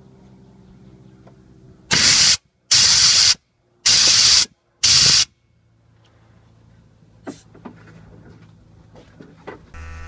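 Compressed-air blow gun blowing out the diesel fuel line between the electric lift pump and the sediment bowl, spraying diesel out of the line. There are four loud blasts of air of about half a second each, in quick succession, starting about two seconds in.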